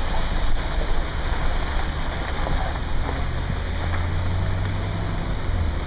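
Wind buffeting the microphone in a low rumble, over a steady rushing hiss of water in a flash-flooded street.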